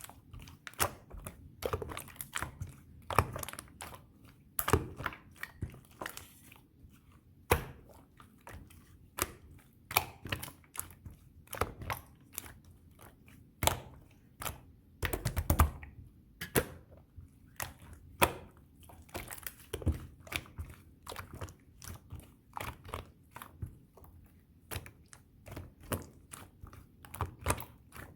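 Slime being squeezed and poked by hand, making irregular sharp sticky pops and clicks, with a quick run of them about fifteen seconds in.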